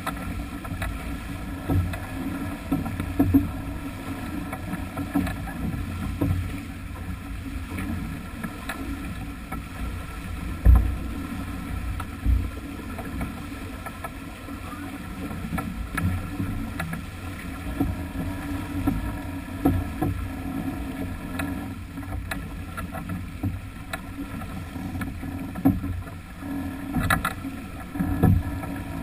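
Sailing yacht under way at speed, heeled over: steady rushing of water along the hull and bow wave, mixed with wind buffeting the microphone. Irregular knocks cut through, the sharpest about ten seconds in.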